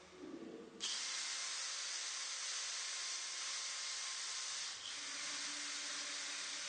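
Makita 18V cordless drill-driver running under load, its twist bit drilling into a square steel tube. It is a steady hissing whir that starts abruptly about a second in and briefly dips near five seconds.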